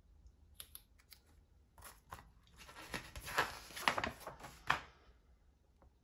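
Pages of a paper instruction booklet being turned by hand: a few light paper ticks, then louder rustling and flapping for about two seconds, stopping about a second before the end.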